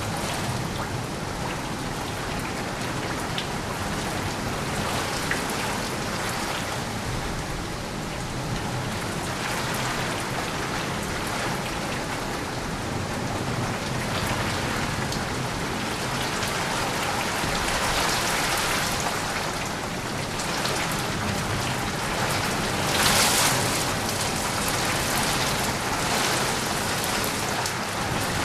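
Steady rain falling and pattering on surfaces, an even hiss of drops, briefly swelling louder about three-quarters of the way through.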